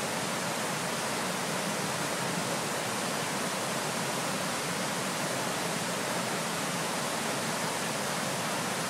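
Steady, even rush of water pouring over a stepped river weir and churning into foam below it.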